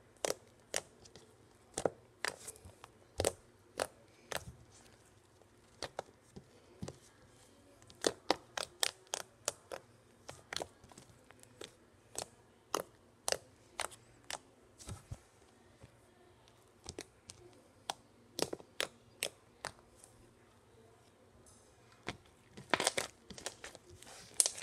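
Slime squeezed and poked by fingers, giving irregular sharp clicks and pops as air trapped in it bursts, in scattered clusters with denser runs around eight seconds in and near the end.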